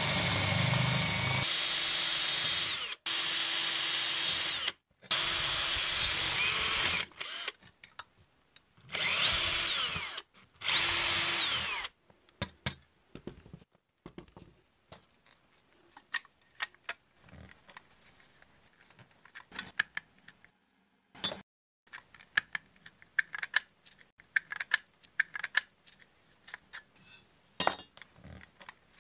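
Ryobi cordless drill running in about five short bursts, drilling out the rivets that hold a pressed-steel toy car body together, with a brief rising whine as the motor spins up on some bursts. After about twelve seconds the drilling stops and only light clicks and taps of the loosened steel parts being handled are left.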